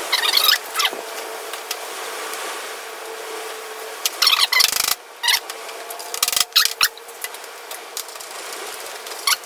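Short scraping and clicking sounds from hand work on a wheelchair caster's sleeve and bearing, in three brief spells, over a steady background hum.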